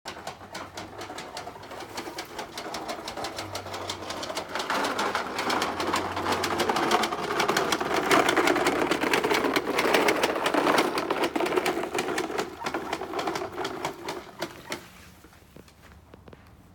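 Push mower rattling along with rapid clicking, growing louder for several seconds, then dying away near the end.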